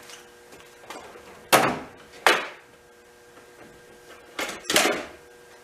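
Four sharp knocks of hand tools striking metal, two close together about a second and a half in and two more near the end, as a stuck potentiometer is worked loose; a faint steady hum underneath.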